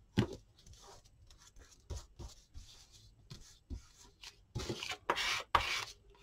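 Hands handling and rubbing paper on a tabletop: a sharp knock just after the start as a plastic glue bottle is set down, a few light taps, then from about two-thirds of the way in a series of rustling rubs as paper and card are pressed and smoothed down.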